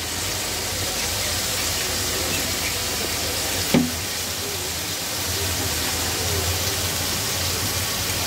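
Steady sizzling of a spiced curry masala frying in a pot on the stove, with a single knock of a spoon against the pot a little under four seconds in.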